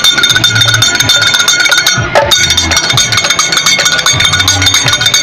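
Karadi majalu folk ensemble playing: large karadi and sambal drums beaten under a fast, continuous clanging of hand cymbals.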